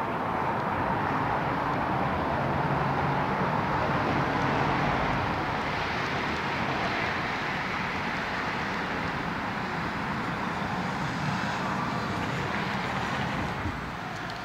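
City street traffic, with a vehicle going past that swells over the first few seconds and then eases off.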